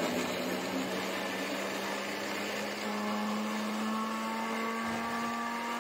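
Westpoint electric countertop blender running steadily, grinding strawberries and milk into a smooth liquid. Its motor hum rises slightly in pitch about three seconds in.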